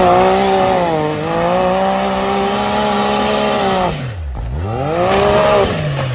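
Side-by-side UTV engine running at high revs, dipping about four seconds in and climbing again before the revs drop off near the end.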